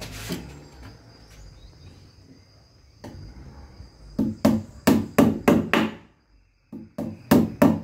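Steel hammer striking a blue plastic drum panel laid on the floor: a run of about six quick blows about four seconds in, a short pause, then four or five more near the end.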